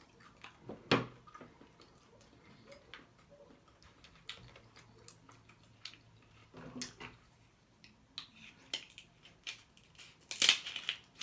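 Close-miked eating of a seafood boil: wet chewing and lip smacking with scattered small clicks and crackles, and a louder burst of crackling near the end.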